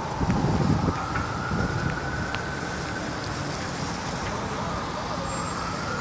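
Busy city street traffic on a wet road, with a double-decker bus approaching: a louder low rumble in the first second and a high whine that dips and then rises in pitch over the next two seconds before holding steady, over a steady wash of traffic noise and crowd voices.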